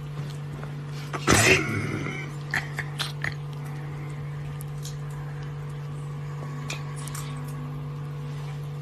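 A kitten gives one short, raspy cry about a second and a half in, followed by a few soft clicks as it bites and paws, over a steady low hum.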